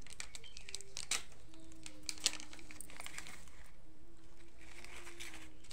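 Plastic spice packets crinkling and a plastic spice box being handled, with scattered light clicks and taps. A faint steady tone sounds in the background twice.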